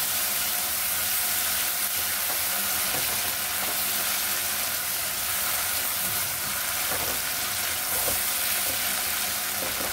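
Onion-tomato masala sizzling steadily in hot oil in a kadai as it is stirred, with a few faint knocks of the spoon against the pan.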